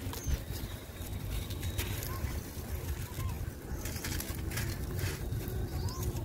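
Dry, gritty sand-cement block crumbling in the hands: crunching and crackling as chunks break up and sand pours down, over a steady low rumble. A few faint bird chirps come through now and then.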